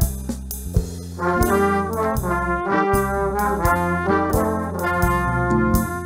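Background music: a melody of short held notes over bass and drum hits, quieter for the first second and then picking up.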